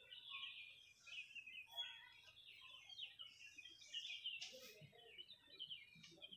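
Faint background birdsong: many short, quick chirps in a steady chatter.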